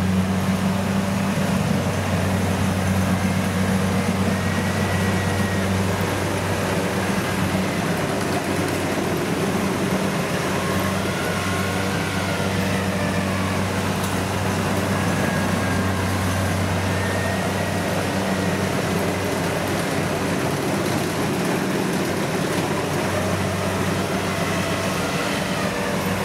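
Kubota DC70 combine harvester's diesel engine running steadily under load while it cuts and threshes rice, an even drone with no change in speed. Faint high tones come and go over it.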